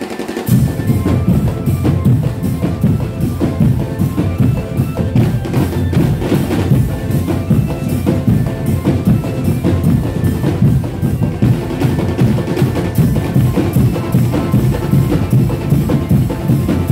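Drum band playing loud, fast percussion music: dense bass and snare drum strokes with a steady melody line over them. The low drums drop out for a moment at the very start, then come back in.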